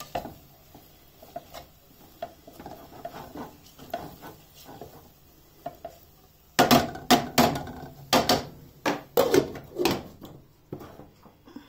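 Kitchen tongs scraping and clinking in a saucepan as noodles are stirred and tossed, with light clicks at first and a run of louder clattering knocks from about six and a half seconds in, dying away near the end.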